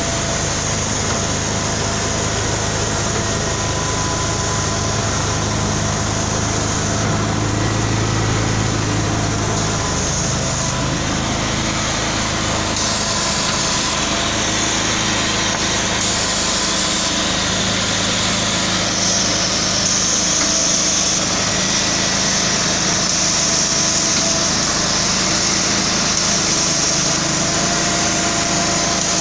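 Road line marking truck with water-based paint spraying equipment running steadily as it creeps along laying a dashed line: engine noise with the higher hum of its on-board machinery, its pitch shifting a little now and then.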